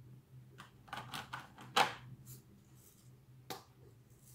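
A handful of short, sharp plastic clicks and taps, irregularly spaced, as diamond painting tools and a plastic drill tray are handled on a light pad; the loudest comes about two seconds in. A faint steady low hum runs underneath.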